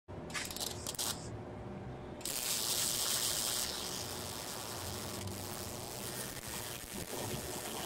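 Wire-feed (MIG) welder arc crackling and hissing as a nut is welded onto the end of a broken, seized bolt: a few short arc starts in the first second, then a steady run of welding from about two seconds in, loudest just after it begins.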